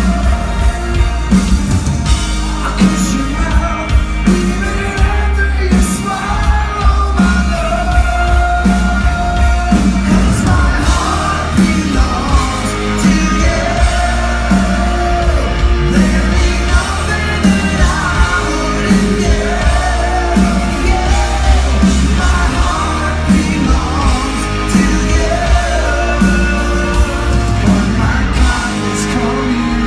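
Glam metal band playing a power ballad live through a large hall's PA, with held, bending sung lines over electric guitars and a steady drum beat, and shouts from the crowd.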